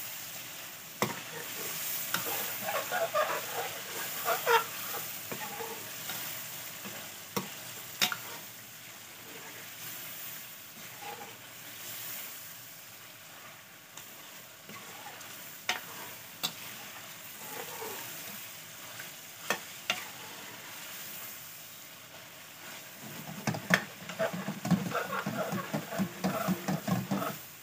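Chicken pieces frying in hot oil and masala in a metal pot, sizzling steadily while a steel spoon stirs and scrapes through them, the chicken being sautéed (bhuna) in the spices. Sharp clinks come now and then as the spoon knocks the side of the pot, and the stirring gets busier and louder near the end.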